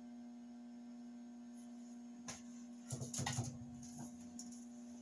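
Steady electrical hum from a fluorescent grow-light fixture. A single click comes a little over two seconds in, then a short cluster of clicks and rustling from handling things about three seconds in.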